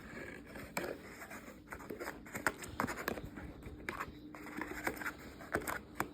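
Toy packaging being handled and opened by hand: scattered light scrapes, taps and clicks of cardboard and plastic.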